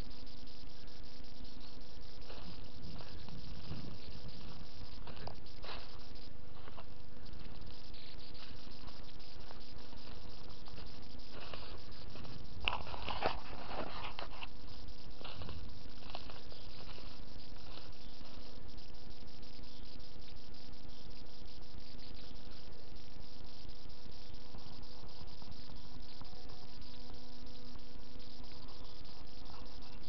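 A steady electrical hum with several even overtones over a fine hiss: the recording noise of a cheap camera's microphone. A brief rustle comes through about 13 seconds in.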